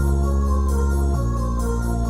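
Music of slow, held keyboard chords over a deep bass, the chord changing once about a second in.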